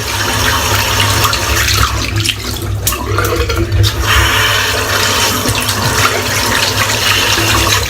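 Water running from a tap into a sink, the stream's sound changing briefly about two to three seconds in as a shaving brush is rinsed out under it.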